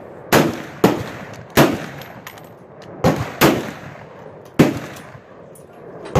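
Gunshots: seven sharp reports at irregular intervals, some less than half a second apart, each trailing off in echo.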